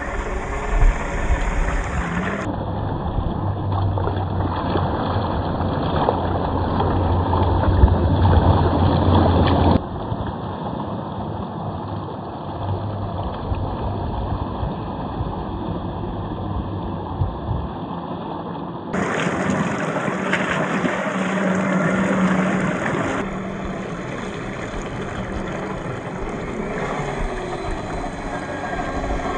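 Scale RC crawler (MST CFX chassis, brushed 540 27T motor) driving through muddy water and thick mud: the whine of its electric motor and gears mixed with splashing and sloshing. The sound changes abruptly at several cuts between shots.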